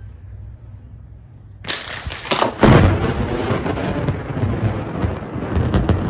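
A close thunderclap breaks out suddenly about two seconds in, with sharp cracks, then rolls on as a long, loud rumble.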